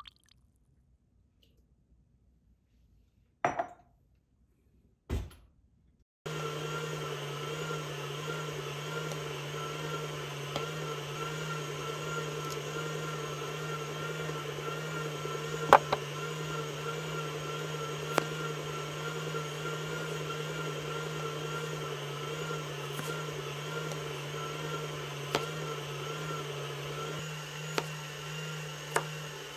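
Two brief knocks in near silence, then an electric stand mixer switches on about six seconds in and runs with a steady motor hum as it beats heavy cream. A few sharp clicks sound over it.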